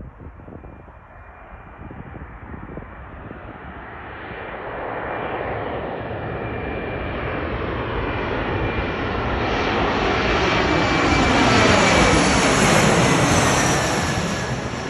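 Embraer E175 regional jet on its landing approach, its two GE CF34 turbofans whining and rumbling as it comes closer and grows steadily louder. It is loudest about twelve seconds in, when the engine tones slide down in pitch as it passes, then it begins to fade.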